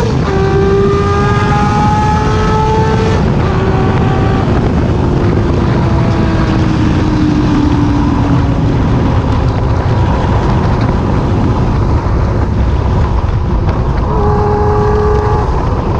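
Six-cylinder motorcycle engine running at high revs on the move, with heavy wind and road noise. Its pitch holds high for the first few seconds, then falls slowly over several seconds as it eases off, and comes back up briefly near the end.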